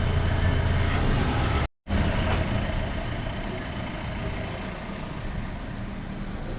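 Motor vehicle engine and road noise, a steady low rumble; an abrupt cut about two seconds in gives way to a quieter stretch of the same kind of rumble.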